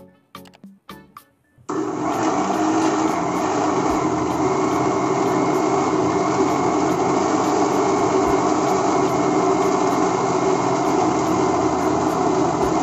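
Electric mixer grinder (mixie) switched on about two seconds in, its motor running steadily at speed as it blends a cake batter of powdered semolina, eggs and ghee in the steel jar.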